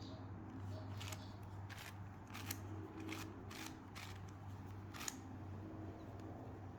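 Plastic 4x4x4 Rubik's Cube (Rubik's Revenge) being turned by hand, layer turns giving a series of about seven short, faint clicks and rasps over a few seconds, over a steady low hum.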